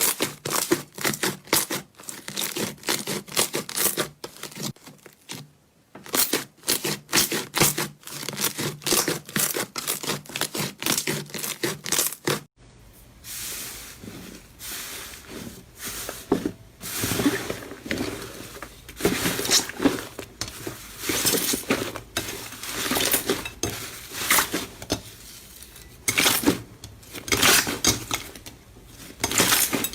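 Slime being squeezed, pressed and pulled by hand, giving dense fast crackles and pops. The clip changes about twelve seconds in, after which a faint low hum sits under the crackling.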